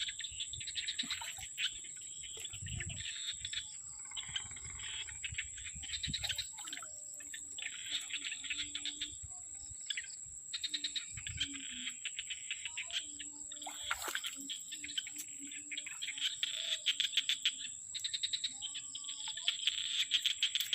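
Insects and birds calling: a steady high-pitched insect whine throughout, over repeated bursts of rapid chirping trills.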